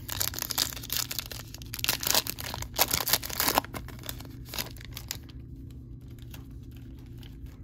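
A Panini Prizm trading-card pack wrapper being torn open and crinkled, with dense crackling for about the first three and a half seconds. A few lighter rustles and clicks follow.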